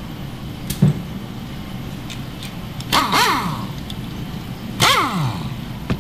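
Two short bursts of an air tool, most likely a pneumatic impact wrench driving the screw of a bushing press, about three and five seconds in. Each burst has an air hiss and ends with the motor spinning down in falling pitch. A couple of sharp metal clinks come about a second in.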